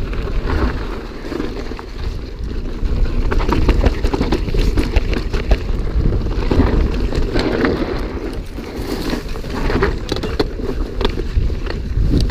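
Mountain bike riding down a dirt trail: a steady rush of wind buffeting the microphone, with frequent knocks and rattles from the bike as it runs over rough ground.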